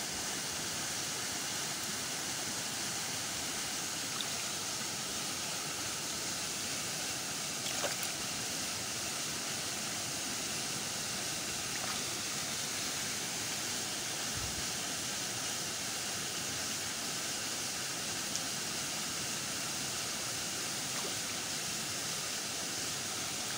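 Steady rushing noise like running water, even and unbroken, with a few faint soft ticks.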